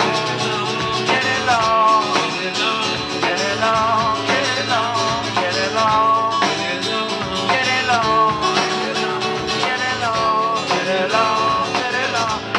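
Live acoustic guitar and drum kit playing an upbeat groove together.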